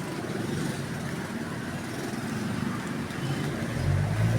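Road traffic noise, with a vehicle engine's low rumble swelling near the end.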